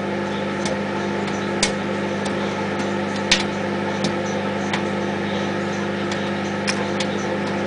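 Microwave oven running with a steady hum while popcorn kernels pop inside it, as sharp single pops about once a second, two of them louder. The pops are sparse, as at the late stage of popping.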